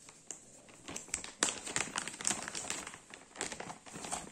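Clear plastic bag crinkling as it is handled and opened: lighter at first, then a dense run of quick crackles from about a second in.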